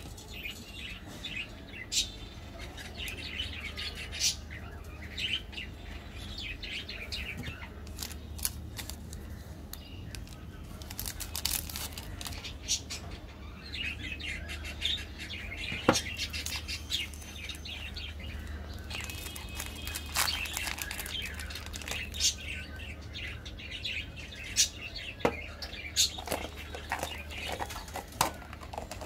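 Plastic candy wrappers and packaging crinkling and rustling in the hands, in irregular bursts with occasional sharp crackles, over a steady low hum.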